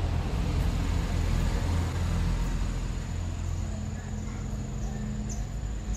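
Steady low machine rumble, with a few faint clicks.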